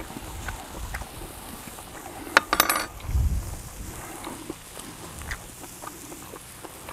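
A quick cluster of sharp metallic clinks about two and a half seconds in, like a metal utensil against a pan or grill, followed by a dull knock. Faint small clicks of handling food and utensils run through the rest.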